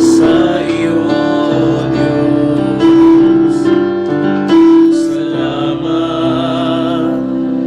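Slow worship song accompaniment led by piano, with sustained notes.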